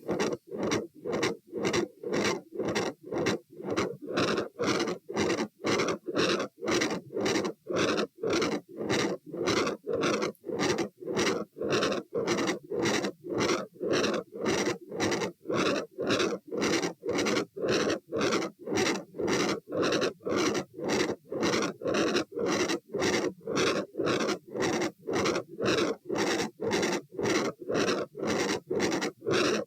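Heart sounds at the aortic area with a very loud murmur on every beat, about two beats a second (120 bpm).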